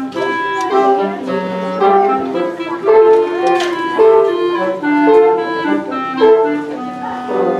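Live woodwind quintet of flute, oboe, clarinet, French horn and bassoon playing a classical passage, several instruments moving in short notes over held lower notes.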